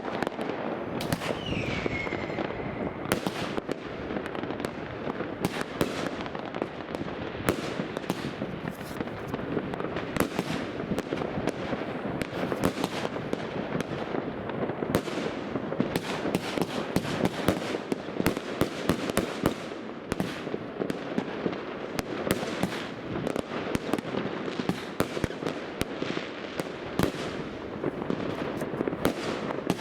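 Riakeo compound fan firework cake (1 kg NEM version) firing continuously: a dense, unbroken run of shots and bursts, with a short falling whistle about a second in.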